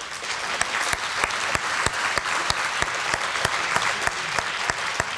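Audience applauding: dense, steady clapping from a roomful of people, with individual sharp claps standing out.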